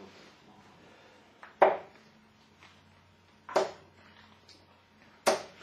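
Three steel-tip darts striking a bristle dartboard one after another, each a sharp thud about two seconds apart, the first the loudest: one player's three-dart throw.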